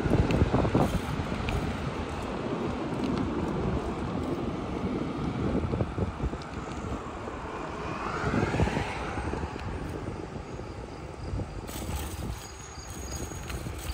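Outdoor street ambience: a low rumble of vehicle noise with wind on the microphone, and a rising engine whine about eight seconds in.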